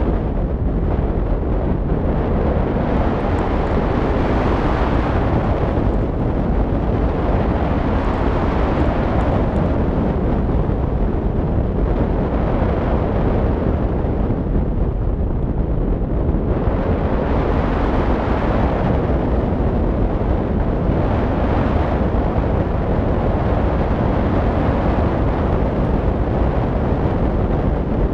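Wind rushing over a camera microphone fixed to a hang glider's wing in flight, a steady loud roar of airflow that swells and eases every few seconds.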